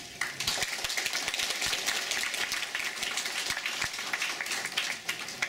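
Audience applauding: many hands clapping, starting suddenly just after the start and thinning out near the end.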